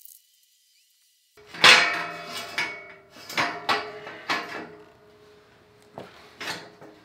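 Black steel roof rack basket clanking as its tube sections are handled and fitted together: a run of sharp metal knocks with a short ringing after each, the loudest about a second and a half in, then a few more spaced out toward the end. The first second or so is silent.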